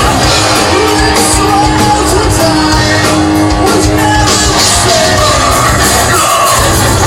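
Loud live rock band playing in a club hall, with a singer's vocal over full band and a long held note through the middle.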